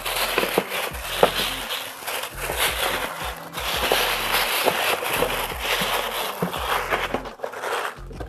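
Packaging being handled: a dense crinkling and rustling of paper and plastic wrapping, with scattered light clicks and knocks, that dies down near the end.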